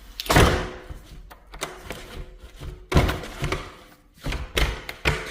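Heavy thunks and knocks from a window being worked shut: a loud thud about a quarter second in, another about three seconds in, and a cluster near the end, with lighter knocks between.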